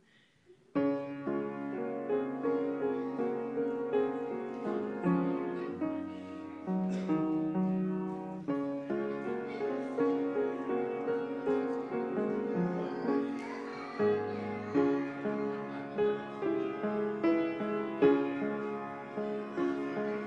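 Grand piano playing a slow piece of full, held chords, starting abruptly about a second in.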